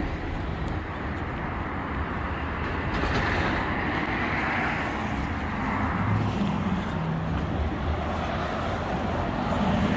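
Steady motor-vehicle noise: a continuous low rumble with road hiss, as from a car driving.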